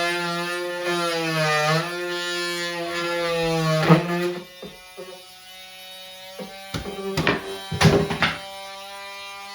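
Battery oscillating multitool with a wood-cutting blade buzzing loudly, its pitch dipping and recovering as the blade bites. About four seconds in it drops to a quieter, steady buzz, and several sharp knocks follow.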